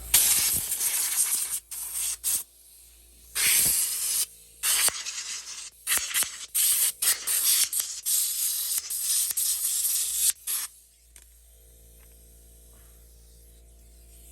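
Compressed air from an air compressor's blow gun hissing in a series of short blasts, blowing dirt off an RC car. The blasts stop and start repeatedly, then stop a few seconds before the end.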